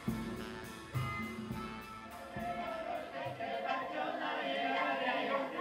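Background music: plucked string notes with low bass notes. They fade out about two seconds in as a blend of voices, sounding like singing, comes up.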